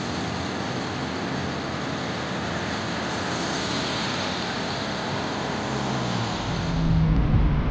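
City street traffic on a wet road: a steady hiss of tyres and passing cars and trolleybuses. Near the end a louder low rumble takes over.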